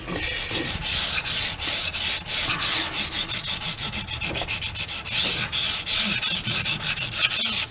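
Knife blade stroked back and forth on sandpaper on a Washboard freehand sharpening board: a quick, even run of scraping strokes.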